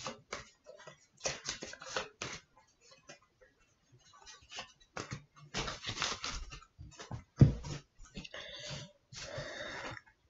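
A deck of oracle cards being shuffled by hand: soft, irregular clicks and rustles of cards slipping against each other, with a single thump about seven seconds in and a run of card rustling near the end as a card is drawn.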